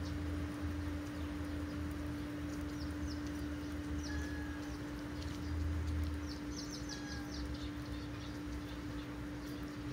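Small birds chirping in short high notes, with a quick run of chirps about six and a half seconds in, over a steady low hum and a low rumble.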